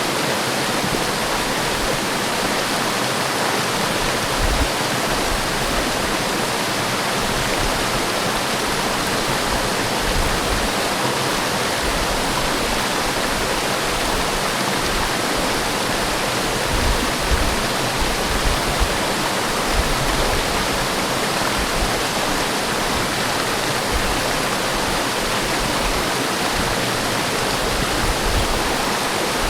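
Forest waterfall: a steady, even rush of falling water, with brief low rumbles now and then.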